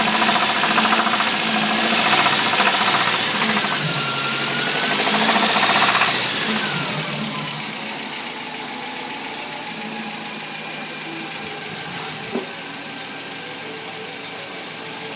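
Toyota 22RE 2.4-litre four-cylinder engine running with a rapid knocking sound of unknown cause. It is held at raised revs, then drops back to a quieter idle about six seconds in. A single sharp click comes later on.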